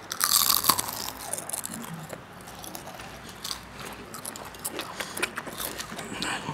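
Potato chips crunching and crackling close to a clip-on microphone: a loud crunch in the first second, then a run of small crackles and clicks as a hand rummages through the bowl of chips and someone chews.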